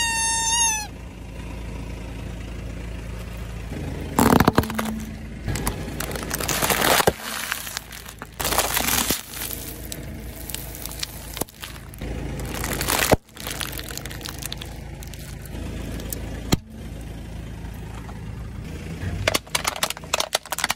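A car tyre rolls over a series of objects. A rubber toy squeaks briefly at the start, then wrapped snacks and plastic crunch and crackle under the wheel in several separate bursts. Near the end a hard plastic mask cracks, over the low, steady hum of the car's idling engine.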